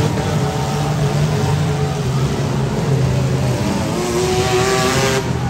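Several compact-car engines running at once in a demolition derby arena, one revving higher about four seconds in, with a brief rush of hiss near the end.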